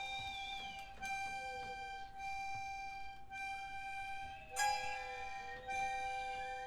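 Instrumental music: held notes over a steady drone, a high line sliding down in pitch early on, and a new chord sounding sharply about four and a half seconds in.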